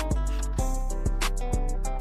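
Background music with plucked guitar notes over a steady beat.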